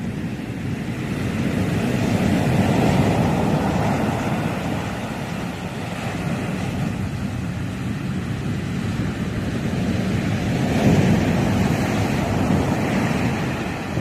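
Sea surf: waves breaking and washing up a dark sand beach in a continuous rush. It swells louder twice, a couple of seconds in and again near the end.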